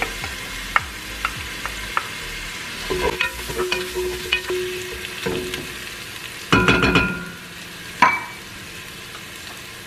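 Chopped onions and freshly added garlic sizzling in oil in a stainless steel pot, the start of a sauté, while a wooden spoon taps and scrapes through them. About six and a half seconds in there is a louder ringing clatter, and a single sharp knock a second and a half later.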